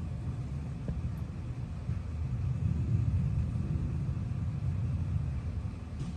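Low, steady rumble that swells a little in the middle, with no clear pitch.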